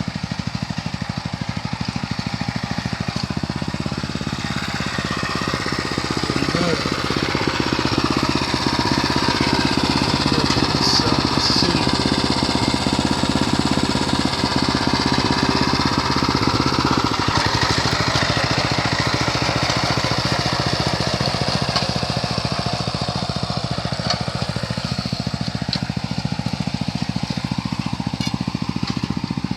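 A small engine running steadily with a rapid chugging beat, growing louder a few seconds in and easing off again past the middle.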